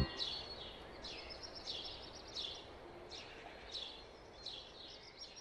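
Faint birdsong: a bird giving a short, high, downward chirp about every three quarters of a second over a soft hiss, slowly fading.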